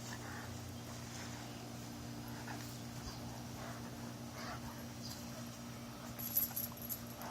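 A dog making faint short sounds over a steady low hum, with a few light clinks near the end.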